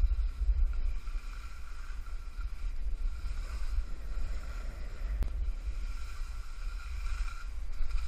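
Wind buffeting the microphone in gusts during a fast ski descent, over the steady hiss of skis sliding on snow. A single faint click about five seconds in.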